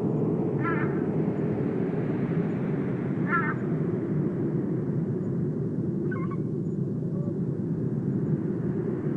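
Three short, harsh bird calls, about three seconds apart, over a steady low rumble.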